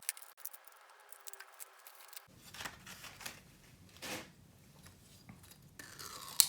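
Scattered light clicks, taps and rustles of small parts and packaging being handled, with a sharper click near the end.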